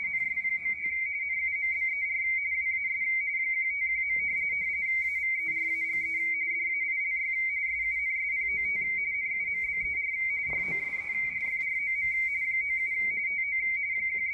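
Baudot radio teletype (RTTY) signal at 170 Hz shift, the ARRL's W1AW bulletin on the 80 m band, heard through a Yaesu FTdx10 transceiver: a steady, fast warble between two high tones over faint band noise.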